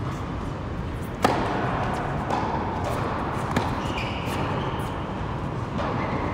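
Tennis racket striking the ball: one sharp, loud hit about a second in, then a fainter hit or ball bounce about three and a half seconds in, over the steady background hum of a large indoor tennis hall.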